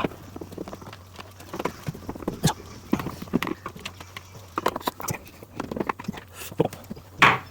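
Irregular knocks and clatter of dishwasher parts being handled and taken apart, the loudest knock near the end, over a faint steady low hum.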